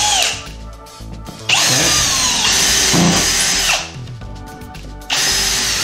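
Milwaukee cordless drill drilling pilot holes into a wood stud through drywall, run in bursts: a short one at the start, one of about two seconds, and another starting near the end. The whine rises as the motor spins up and falls as it slows at each release of the trigger.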